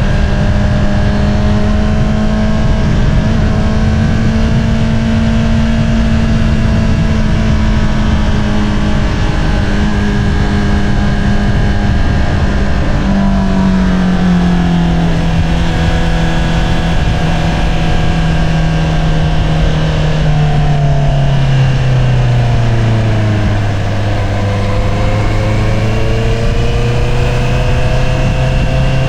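Exhaust note of a 2022 Honda CBR650R's inline-four through an Akrapovič single-outlet exhaust while riding. It holds a steady pitch for about the first half, then falls over several seconds as engine speed drops, levels off, and rises slightly near the end.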